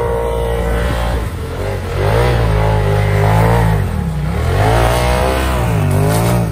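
Polaris RZR XP 1000 side-by-side's twin-cylinder engine revving hard under load, its pitch rising and falling repeatedly as it spins its wheels towing a snowmobile up a dirt pile.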